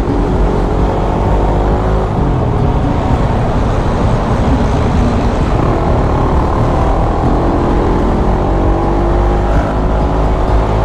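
Motorcycle riding in traffic: its engine running steadily under a heavy rumble of wind and road noise, the engine pitch climbing slightly in the second half as it picks up speed.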